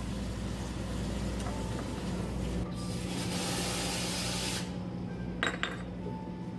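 Cafe counter work sounds over a steady machine hum, with a hissing spray lasting about two seconds midway and a couple of light clicks near the end.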